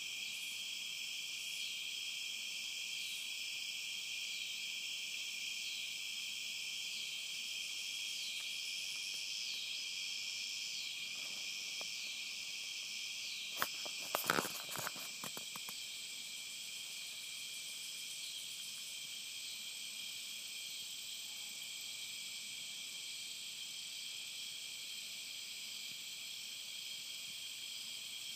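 Steady chorus of insects in the woods, with one call pulsing roughly once a second through the first half. About halfway through, a short cluster of sharp clicks and knocks is the loudest sound.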